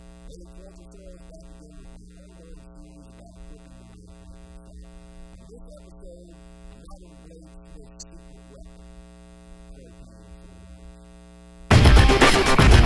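Steady electrical mains hum with a faint, indistinct voice underneath. Near the end loud intro music starts abruptly.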